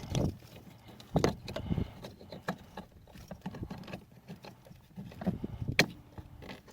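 Plastic wiring connectors and loom being handled and pushed together, with rustling and several small knocks, then a sharp click near the end as the throttle controller plug latches into the accelerator pedal connector.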